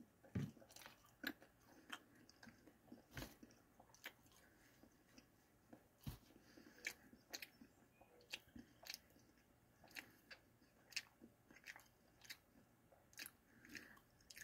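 Faint close-up chewing of a mouthful of sauced, breaded boneless buffalo wing: soft, irregular wet mouth clicks, roughly one or two a second.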